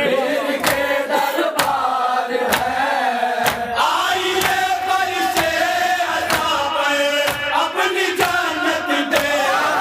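A group of men chanting a Shia mourning salam in unison through a microphone, with sharp hand slaps of chest-beating matam keeping the beat about once a second.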